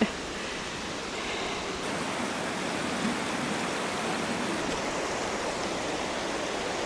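A river flowing, heard as a steady, even rush of water.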